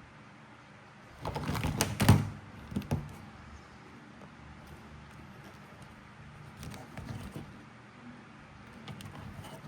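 Plastic toys and packaging being handled: a burst of clattering clicks and rustling about a second in, the loudest knock near two seconds, then softer rustles and taps later on.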